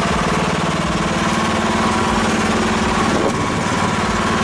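Small carbureted engine of a Chinese mini excavator idling steadily.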